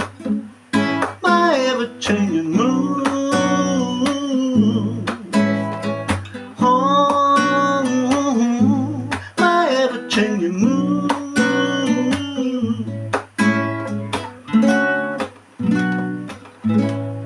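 Acoustic guitar strumming chords with sharp strokes, playing the closing passage of a song after the last sung line, with some wordless singing over it.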